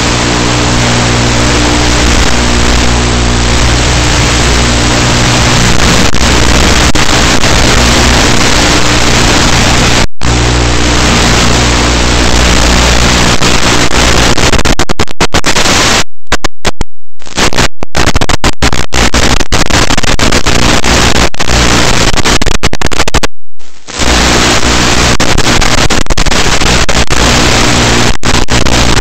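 Loud steady hiss over a low hum, the static of an analog FPV video link recorded at the receiver. It cuts out to silence in many short gaps between about 15 and 24 seconds in.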